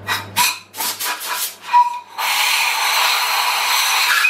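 Compressed-air blow gun blasting metal swarf out of a freshly drilled head-stud hole in an engine block. It gives several short puffs, then a long continuous hiss from about two seconds in.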